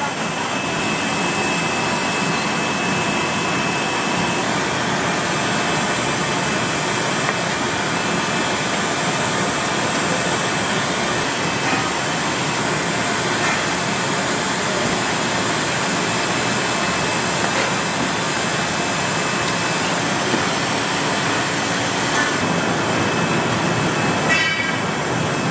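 Steady noise of food-factory machinery running, with a few faint clinks over it.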